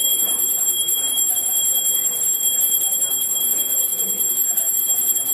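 Brass hand bell rung rapidly and without pause, giving a steady high ringing, as is done while the aarti lamp is waved before the deity.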